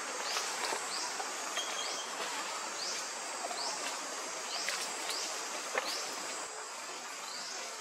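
Forest ambience: a steady insect hiss with short, high rising chirps repeating irregularly about once a second.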